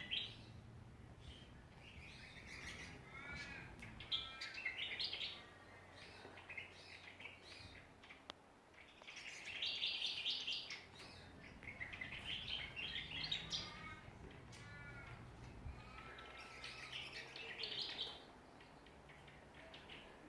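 Songbirds singing in bursts of bright, quick warbling phrases mixed with short repeated arching notes, each burst a second or two long with brief pauses between.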